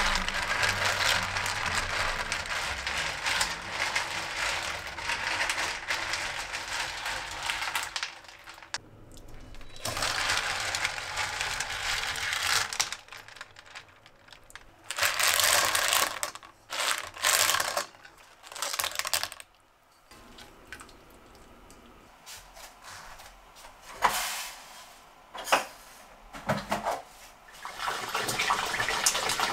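Cockles in a pot of boiling water being stirred with a spatula, then lifted out in a mesh strainer with the water splashing and draining off in several loud surges. After a quieter stretch with a few sharp clicks, a kitchen tap runs into a bowl as rice is rinsed near the end.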